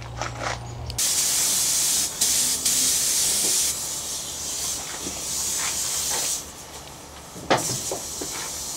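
Compressed-air paint spray gun hissing as paint is sprayed onto a masked truck cab, starting about a second in and easing and picking up again a few times.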